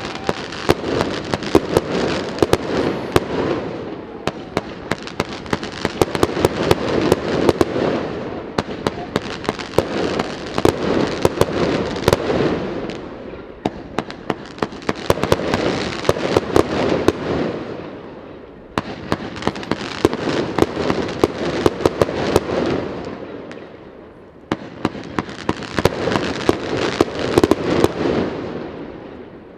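Fireworks display: a dense run of sharp cracks and bangs over a continuous hiss, coming in swells of about four to six seconds that break off suddenly and start again.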